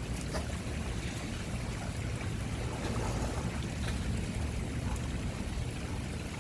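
Water sloshing and lapping around a swimming dog and the person holding it, with a steady low rumble of wind on the microphone.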